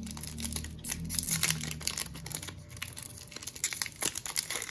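Foil trading-card pack being torn open by hand, its wrapper crinkling in a dense run of small crackles.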